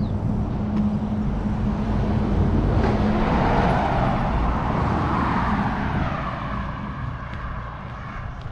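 A motor vehicle passing on the road. Its engine and tyre noise swells to loudest about halfway through, then fades away near the end.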